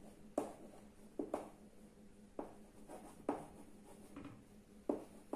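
Chalk writing on a blackboard: a series of short, sharp chalk strokes and taps at an uneven pace, roughly one a second, with faint scratching between them.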